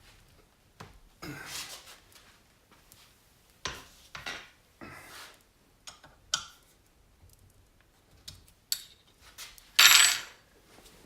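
Scattered metal clinks and clanks as a BMW R80 fork assembly and its parts are handled and set back in a vise. The loudest is a sharp clank near the end.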